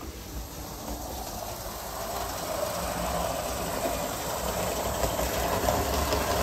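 HO-scale Bachmann F7 model diesel locomotive running on the track, its motor and gears whirring steadily and growing louder as it comes closer. A little clicky noise remains in the drive, which the owner puts down to a twisted gear.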